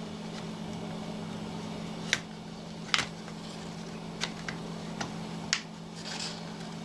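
Sharp clicks and light knocks of parts being fitted back onto a chainsaw's carburettor, about five of them spaced out over several seconds, over a steady low hum.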